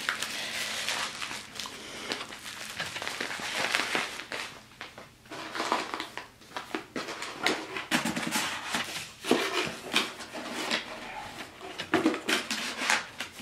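Rustling and crinkling of packaging being handled, with irregular small knocks and scrapes: bubble wrap, corrugated cardboard and soft bags are moved about in a packing box.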